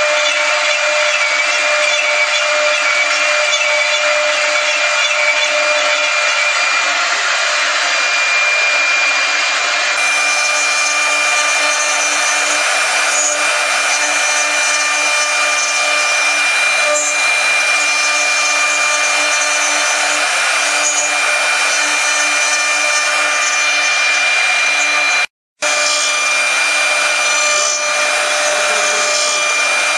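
CNC router spindles running at high speed while their bits carve wood held on a rotary axis: a steady high-pitched whine over the hiss of cutting. The sound changes abruptly about ten seconds in and drops out for a moment near the end.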